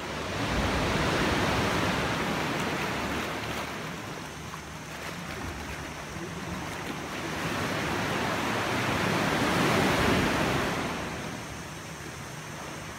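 Sea waves washing and surging against the rock inside a sea cave. The wash swells twice, about a second in and again around ten seconds in.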